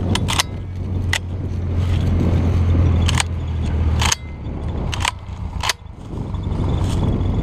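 Dry corn stalks and stubble crunching and snapping underfoot in a series of sharp cracks, over a low steady rumble that drops away about four seconds in.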